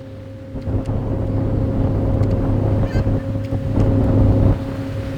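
Motorboat running fast, its engine a steady drone under a loud rush of wind and water. The rush swells about a second in and drops back near the end.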